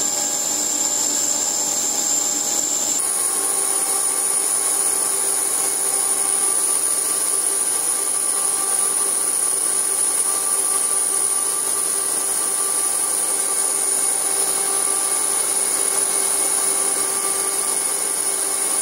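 Steady drone of factory machinery running, with a constant high-pitched whine over a lower hum; the pitch of the whine jumps higher abruptly about three seconds in.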